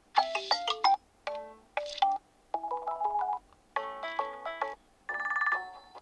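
Nokia G42's built-in ringtones previewed one after another through the phone's loudspeaker. Five short melodic snippets, each cut off after under a second as the next tone in the list is selected.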